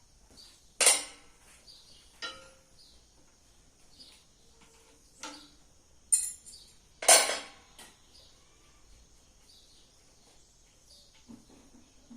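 Metal knocks and clanks, about five scattered strikes with the loudest about a second in and about seven seconds in, as metal parts or tools are handled.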